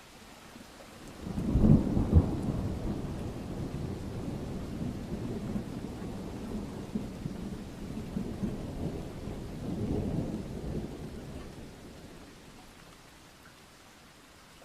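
A peal of thunder over steady rain: it breaks with a sharp crack about a second in, rolls on as a low rumble, swells again later and then dies away, leaving the soft hiss of the rain.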